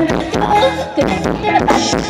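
Live band playing Thai ramwong dance music with a steady drum beat.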